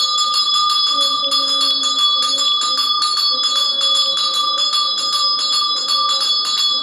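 Brass puja hand bell rung rapidly and without pause, about six strokes a second, its ringing tones held throughout.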